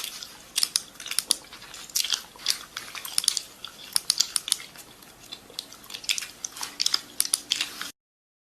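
A person chewing something crunchy: dense, irregular crisp crunches and bites, cutting off suddenly near the end.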